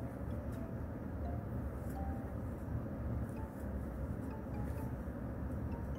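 Faint background music, a soft melody of single notes, over a steady low rumble, with a few faint clicks.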